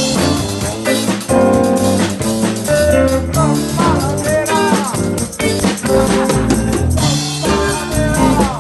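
A band playing, with a drum kit keeping a busy beat under a guitar that bends notes up and down partway through.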